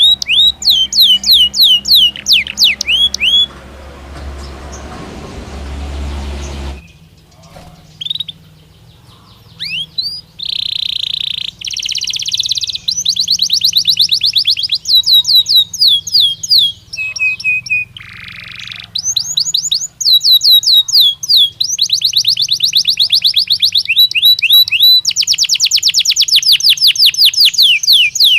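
Domestic canary singing: quick runs of repeated downward-slurred whistles and fast rolling trills, high and loud. About four seconds in the song breaks off for a few seconds, and a low, noisy rumble fills the gap before the singing resumes.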